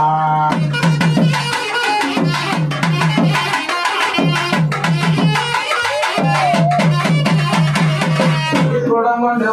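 Traditional Indian percussion music: fast runs of a pitched drum with sharp, dense strokes over it, broken by three short pauses and stopping just before the end.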